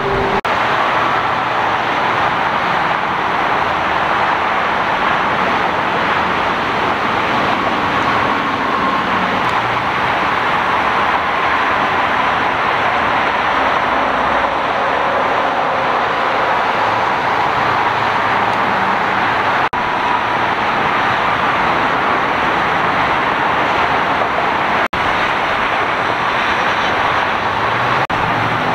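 Steady freeway traffic noise: tyres and engines of many cars passing at speed, an even rush with no single engine standing out. It breaks sharply a few times, where separate recordings are joined.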